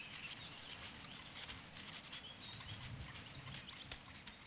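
Faint reed-bed ambience: soft rustling with a few faint, short, high bird chirps.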